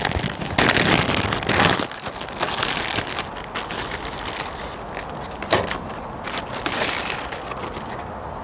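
Rustling and crinkling of fresh coriander being handled, loudest in the first two seconds, followed by a few light clicks and knocks.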